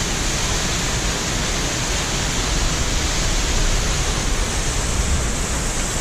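Waterfall pouring, a loud, steady rushing noise.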